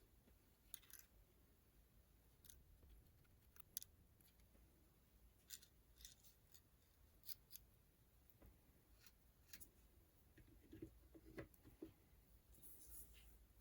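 Faint, irregular sharp clicks and small metallic snips from small hand tools and parts being handled at a workbench, with a few duller knocks near the end.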